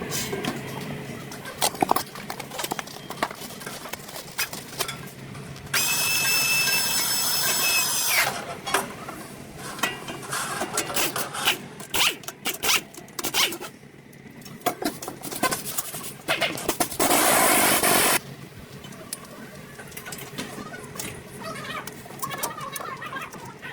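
Mechanic's tools clanking and clicking while a front wheel hub assembly is being replaced, with a power tool running at a steady high whine for about two seconds near the middle and a short loud hissing burst later on.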